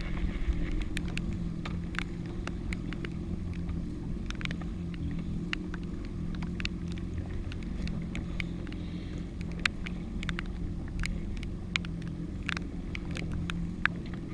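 Yamaha WaveRunner jet ski engine idling with a steady low drone. Scattered sharp ticks sound over it, a few louder ones in the second half.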